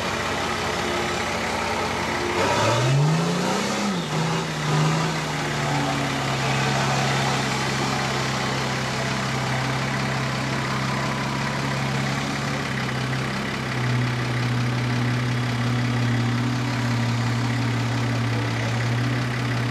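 Nissan GQ Patrol wagon's turbo diesel engine working up a dirt hill climb: the revs rise sharply about three seconds in, then settle into a steady drone that drops a little in pitch past the halfway point.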